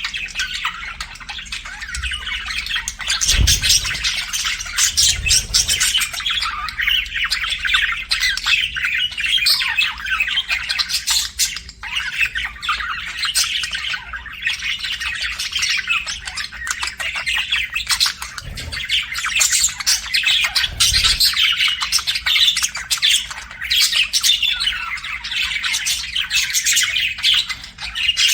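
Budgies chirping and chattering without pause, a dense run of quick high chirps and warbles, with a few dull low thumps now and then.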